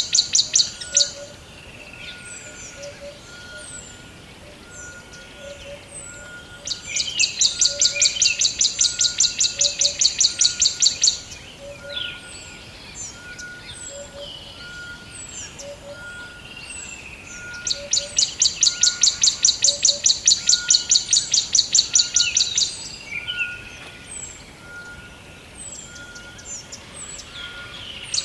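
Forest birds chirping, with many short falling high calls. A loud, rapid pulsing trill comes in bouts of about four to five seconds, twice, and a faint single note repeats about once a second underneath.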